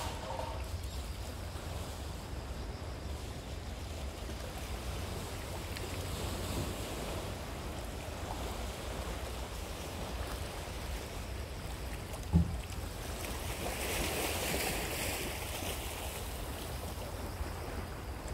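Sea waves washing over a rocky shore, with a steady low rumble of wind on the microphone. One sharp thump comes about twelve seconds in, and the wash of the surf swells a little a couple of seconds later.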